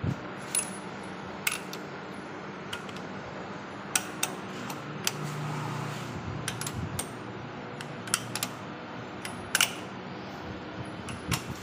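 Irregular metallic clinks and taps of a socket on a long extension bar against a tractor engine's cylinder head as the head nuts are worked, over a steady background hum.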